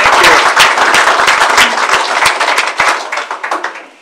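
Room audience applauding, many hands clapping densely, then thinning out and dying away over the last second.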